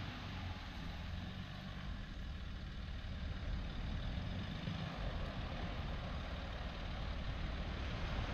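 Station wagon's engine running as it drives slowly across grass, a low steady rumble that grows a little louder over the second half as it comes closer.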